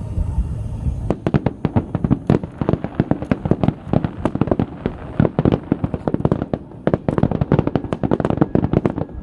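Fireworks going off in a rapid, irregular string of sharp bangs, many a second, starting about a second in after a low rumble.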